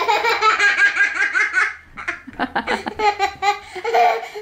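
A toddler laughing hard: an unbroken run of giggles for about the first two seconds, then, after a short break, shorter bursts of laughter.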